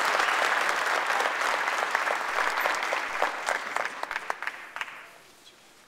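Audience applauding, thinning to a few last claps and dying away about five seconds in.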